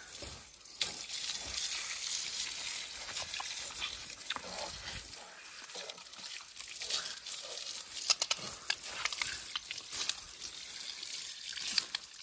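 A jet of water from a hose pipe hissing and spattering against a dirty motorcycle's rear wheel, swingarm and shock absorber.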